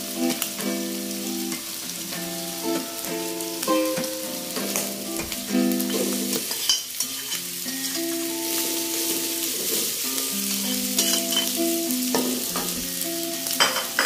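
Food sizzling in a hot metal wok as cooked rice is tipped in from a bowl, with a few scrapes and knocks of a metal spatula. Background music of held notes plays underneath.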